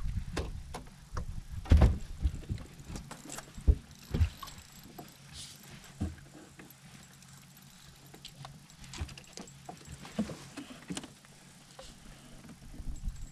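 Irregular knocks, thumps and clatter on a boat's deck as anglers move about and handle rods and gear, the loudest a heavy thump about two seconds in. A low steady hum runs underneath.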